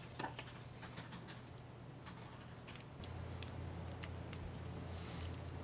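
Faint clicks and taps of small plastic screw-terminal plugs and a screwdriver being handled on a tabletop, as a cable is terminated into the plugs. A low steady hum comes in about three seconds in.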